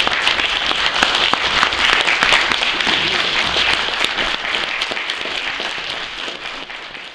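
Congregation applauding: many hands clapping together, holding steady and then slowly dying away near the end.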